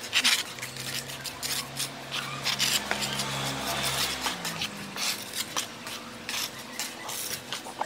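Steel plastering trowel scraping and smearing cement mortar on a concrete window moulding, in a run of short rasping strokes. A low steady hum runs under the first half and stops about four seconds in.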